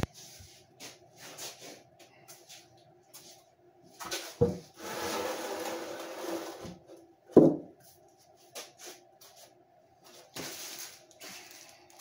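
A heavy old wooden plank is set down and shifted on a concrete floor: a thump, about two seconds of scraping and shuffling halfway through, then a loud thump. Light knocks and rustles of handling come before and after, over a faint steady hum.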